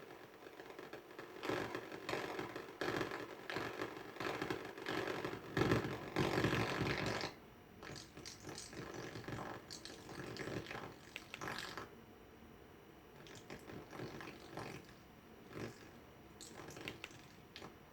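Weemax A300 device making an irregular raspy, scraping noise over faint steady tones, the faulty sound it is meant to show. The noise is loudest in the first seven seconds or so, then comes in weaker, scattered bursts.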